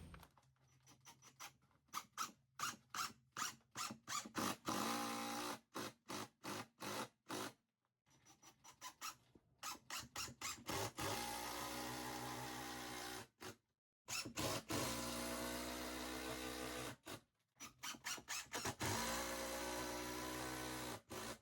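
Cordless drill driving screws into wood: a string of short trigger blips, then three longer runs of about two seconds each, the motor's pitch rising as it spins up.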